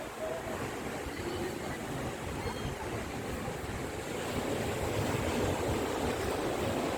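Sea surf washing steadily onto the shore, with wind rumbling on the microphone; the rush grows a little louder about halfway through.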